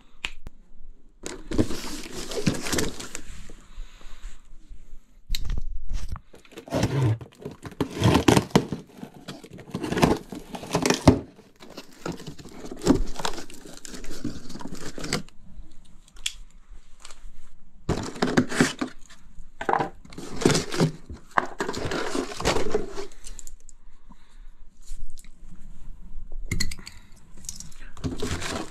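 Cardboard box of a new furnace blower motor being opened and unpacked by hand: irregular rustling, crinkling and tearing of cardboard and wrapping, in uneven bursts with short pauses.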